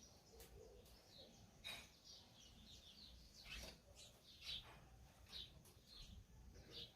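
Faint, irregular chirping of small backyard birds: a dozen or so short, high notes, each dropping in pitch, the clearest about halfway through.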